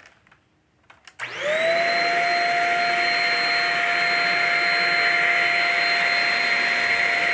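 Shark Rocket self-cleaning stick vacuum switched on about a second in: the motor spins up with a rising whine, then runs steadily with a constant whine over a loud rushing hiss of air.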